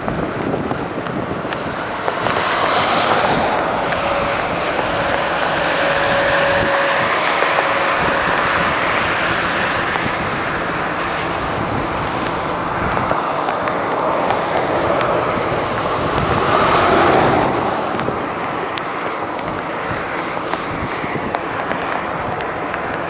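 Steady rushing wind noise that swells twice, once a couple of seconds in and again past the middle, with a faint thin whine for a few seconds early on.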